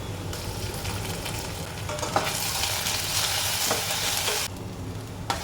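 Food sizzling in hot oil in a pan while a spoon stirs it, scraping and clinking against the pan a few times. The sizzle gets louder about two seconds in and drops away shortly before the end.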